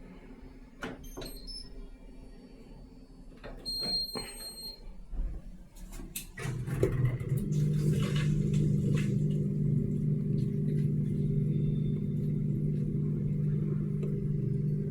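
Indesit IWSC 51051 front-loading washing machine: a few clicks, then about six seconds in it starts running with a steady low hum that steps up a second later and holds.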